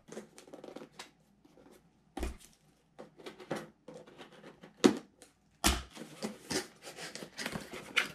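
Small scissors snipping through packing tape on a cardboard box, then the cardboard flaps rustling and scraping as they are pulled open. Irregular sharp snips and clicks, the sharpest about five seconds in.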